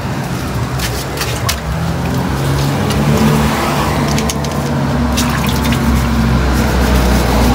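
Water splashing and dripping as a bare motorcycle alloy wheel is worked by hand in a water basin, with short splashes, over a steady engine hum.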